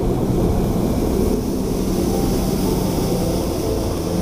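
Bass boat running at speed on its outboard motor: a steady engine drone with a low hum, under wind rushing over the microphone.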